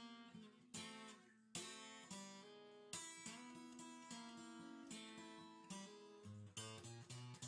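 Quiet background music: an acoustic guitar strumming and picking chords.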